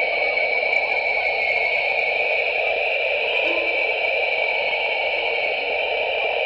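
Sonification of JWST's Southern Ring Nebula data: a steady, static-like drone of noise in two bands, a low one and a brighter higher one, with a few faint short low tones now and then.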